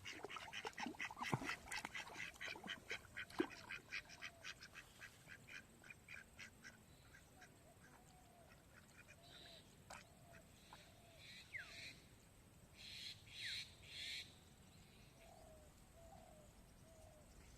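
Ducks quacking faintly: a fast run of quacks that slows and fades over the first several seconds, then a few scattered calls and three louder harsh quacks near the end.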